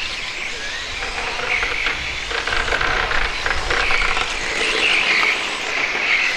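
Several radio-controlled touring cars racing on a carpet track: a high motor whine that swells and fades as the cars pass, with scattered ticks. It is a little louder in the middle.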